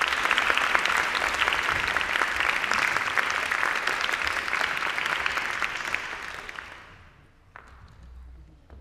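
Audience applauding, dying away about seven seconds in, followed by a couple of faint knocks.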